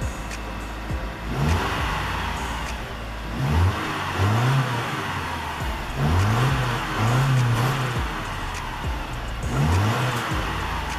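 Subaru Forester XT's turbocharged flat-four engine revved in about five short blips, the exhaust note rising and falling in pitch each time. The exhaust runs through a bolt-on WRX mid-pipe that has no centre resonator.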